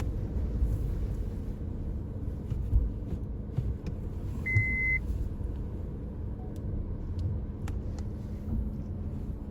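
Low rumble of a Suzuki Jimny crawling along an off-road track, with a single short beep about four and a half seconds in.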